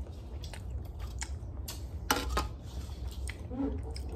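Close-up chewing and mouth sounds of someone eating poke, with light clicks of wooden chopsticks against a clear plastic takeout container, the sharpest click about two seconds in.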